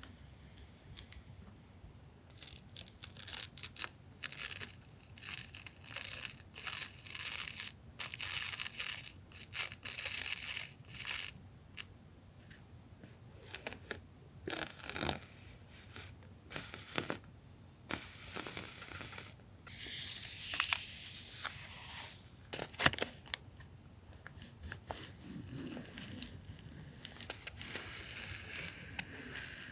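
Masking tape and paper handled close to the microphone: a quick run of tearing and crinkling strokes, then scattered sharper taps and rustles, the sharpest about 23 seconds in.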